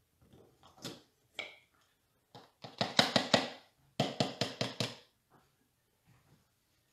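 Plastic hand-pump milk frother (whipped cream maker) being handled: a few clicks as the plunger lid is worked loose, then two quick runs of sharp plastic knocks, about six or seven a second, as the lid and plunger are knocked about around the jar.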